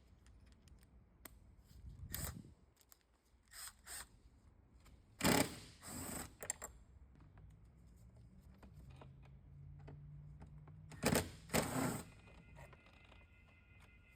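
Socket tools working on car door-panel bolts: scattered clicks and a handful of sharper metallic knocks and clatters, with a faint steady low hum through the middle.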